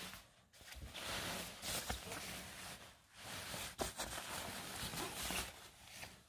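Rustling of a down puffer jacket's shiny synthetic shell as it is handled and shifted, in two long stretches with a couple of sharp crackles.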